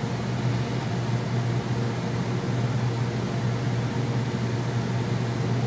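Steady low hum with an even hiss underneath: constant room background noise, with no distinct handling sounds.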